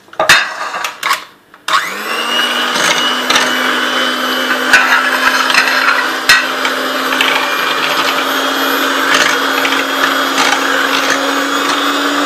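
Electric mixer whipping cream in a bowl until thick: a few knocks, then the motor starts about two seconds in and runs steadily, its hum creeping slightly higher, with occasional clicks.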